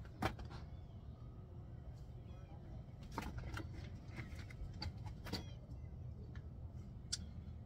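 Scattered clicks and light metallic taps from hands working at a car's brake caliper and wheel hub, the sharpest just after the start, over a low steady outdoor hum.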